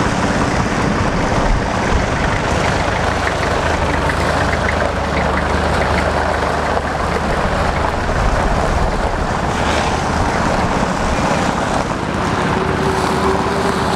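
Scammell Scarab three-wheeled tractor unit's engine running steadily as it tows a loaded flatbed trailer.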